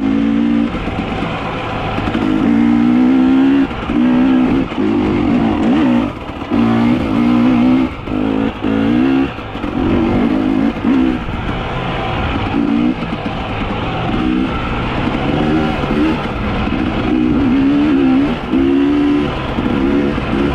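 A small engine revving again and again in short bursts, its pitch wavering up and down, over a steady background din.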